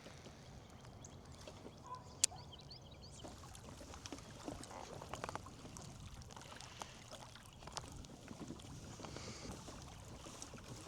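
Faint water sounds around a kayak, lapping and dripping, with a few light knocks and one sharp click about two seconds in.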